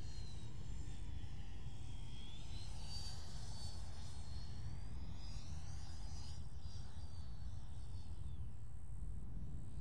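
Electric ducted fan of an FMS 80mm Integral RC jet whining in flight. The high whine climbs in pitch about two and a half seconds in, holds, then slides down near the end, over a steady low rumble.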